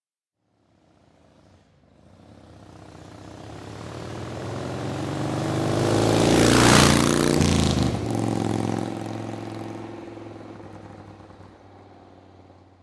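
A motorcycle driving past: the engine note swells as it approaches, is loudest about seven seconds in, drops in pitch as it passes, then fades away.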